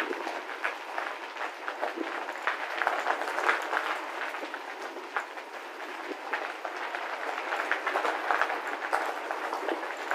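Bicycle tyres rolling over a gravel path: a steady, dense crackle of small crunches and clicks.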